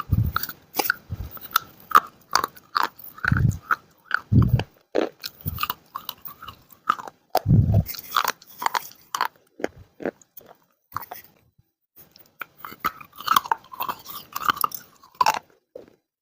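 Dry baked clay crunching and crackling close to the microphone in a string of sharp, irregular crunches, some with a deeper thud. A short lull comes about two-thirds of the way in, followed by a quick run of crunches.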